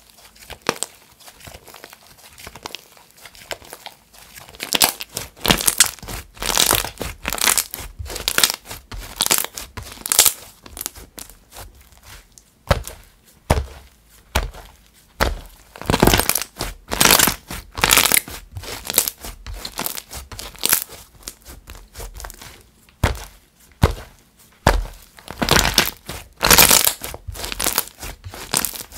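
Thick clay-mixed slime being stretched, pressed and squished by hand, making repeated crackling pops and tearing sounds that grow louder about four seconds in.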